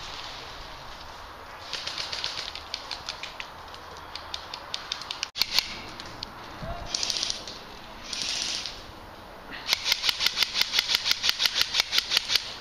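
Airsoft guns firing on full auto: a short burst of rapid pellet shots about two seconds in, a few scattered shots, then a fast, steady stream of shots over the last few seconds.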